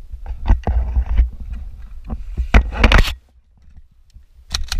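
Irregular knocks and scraping close to the microphone for about three seconds, then a pause and one more short burst near the end.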